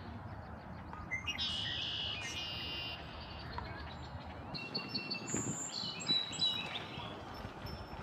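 Wild songbirds singing: a buzzy trilled song lasting about a second and a half, then a run of short high chirps and whistled notes a few seconds later.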